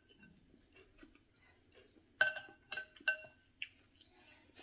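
Metal cutlery clinking against a ceramic plate and bowl while eating. Faint taps, then three sharp ringing clinks a little past two seconds in and one weaker clink after them.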